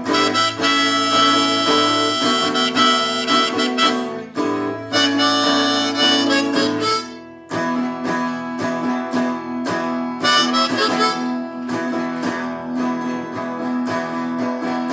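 Blues harmonica playing a solo over acoustic guitar, with long held bent notes; it breaks off briefly about halfway through, then comes back in over the guitar.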